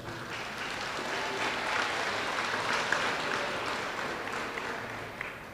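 Audience applauding, swelling over the first couple of seconds and then fading away toward the end.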